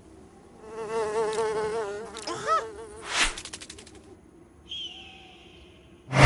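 Cartoon sound effect of a fly buzzing, its pitch wavering and looping up and down as it flies about. About three seconds in there is a sharp snap followed by a quick rattle.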